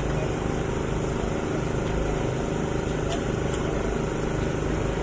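A steady low mechanical drone with an even hum, like a motor running, under faint background voices and a few light clicks.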